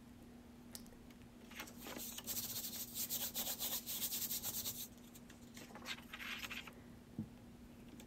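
A hand rubbing quickly back and forth over a folded sheet of paper, pressing wet acrylic paint through to the other half. The dry rubbing starts about a second and a half in and lasts about three seconds, then comes back more faintly for about a second.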